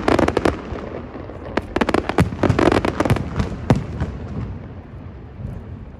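Fireworks going off in rapid clusters of sharp cracks and bangs: a short volley at the start and a longer one from about one and a half to four seconds in, then dying away.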